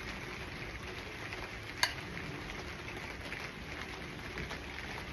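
Food sizzling steadily in hot oil in a pan, with one sharp click about two seconds in.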